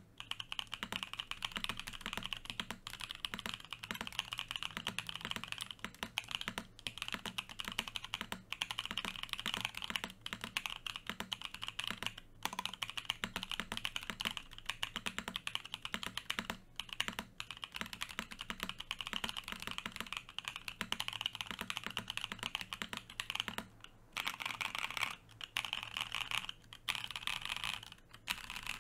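Fast, continuous typing on an F1-88 mechanical keyboard with an aluminium plate, fitted with Musetsu (Snow Fog) switches lubed on housings and springs: a dense stream of keystroke clacks, broken by a few brief pauses.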